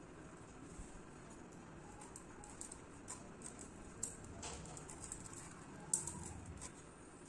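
Faint cutting sounds from raw jackfruit being sliced on a floor-mounted boti blade: soft scrapes and a few light clicks, the sharpest about six seconds in.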